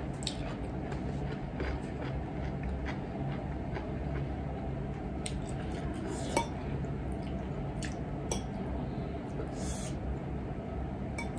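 Metal fork clinking and scraping against a ceramic plate while twirling spaghetti: a handful of sharp clinks, mostly in the second half, over a steady low room hum.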